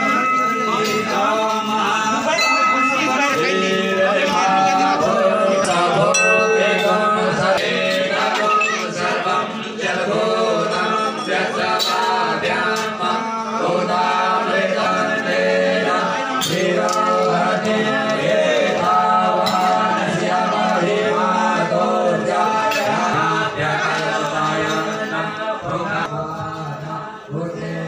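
Hindu devotional singing by male voices, with a steady low drone held beneath it.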